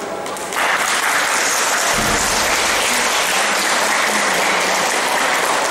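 Audience applauding, a steady wash of clapping that starts about half a second in.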